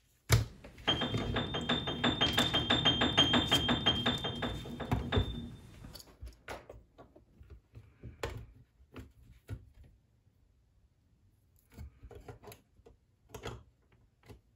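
Piano-like keyboard music with a fast, even pulse plays for about the first five seconds, then stops. After that come scattered quiet clicks of plastic Lego bricks being handled and snapped together.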